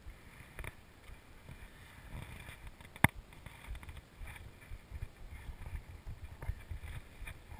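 Rustling and low rumbling from the rider's movement against a chest-mounted action camera, with scattered soft knocks and one sharp click about three seconds in.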